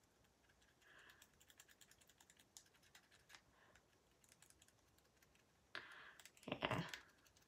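Faint, quick clicks and scrapes of a plastic floss pick being worked between teeth, with a louder noise about six seconds in.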